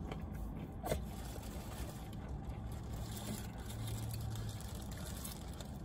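Steady low hum inside a car's cabin, with one brief click about a second in.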